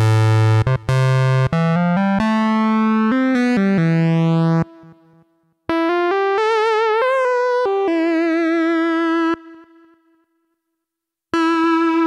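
Korg Mono/Poly software synthesizer playing its 'Analog PhaseLead' preset: a lead line of quick notes, then after a short break a phrase with vibrato ending in a held note that dies away. Another note starts near the end.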